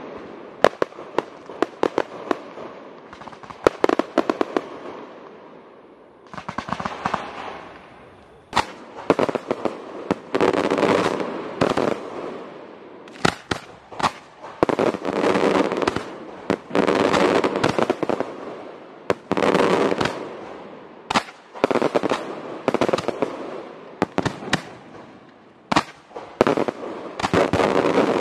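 Fireworks display: many sharp bangs of launching and bursting shells, with waves of dense crackle that swell and fade every few seconds.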